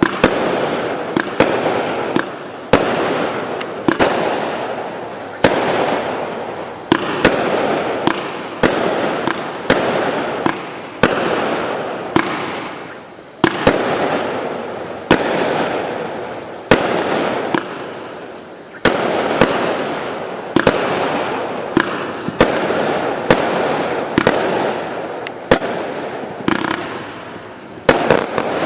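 A 249-shot 0.8-inch firework cake firing shot after shot: sharp bangs about once or twice a second, each followed by a fading rush of noise as the shells burst overhead.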